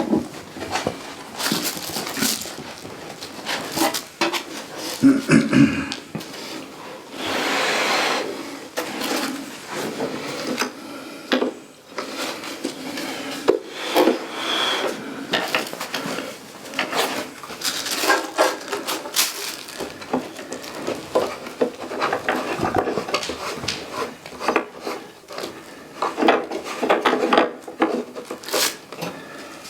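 Shipping box and its packing being handled as a telescope is worked out of it: a string of uneven knocks, clicks, rubs and scrapes, with a longer sliding rub about eight seconds in.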